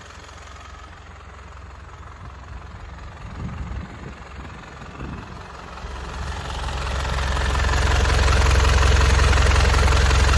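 Hino S05C four-cylinder diesel engine idling steadily in an open engine bay, growing much louder over the last few seconds.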